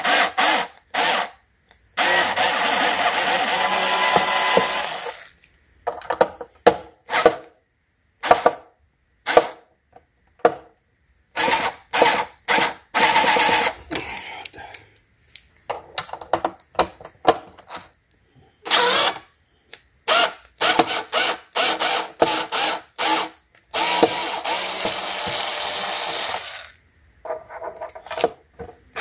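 Cordless electric screwdriver running in many short pulses, with two longer runs of a few seconds (one about two seconds in, one near the end), backing Phillips screws out of an e-bike's frame cover.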